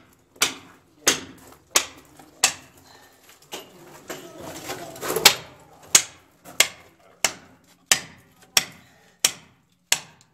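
Repeated hammer blows at a steady pace, about one and a half a second, each a sharp knock with a short tail. They break off for a couple of seconds near the middle, during a rougher stretch of noise, then carry on.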